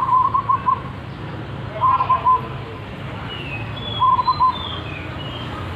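Zebra dove cooing: three short phrases of quick, rolling coos about two seconds apart. Faint high chirps of other birds and a steady low hum lie behind.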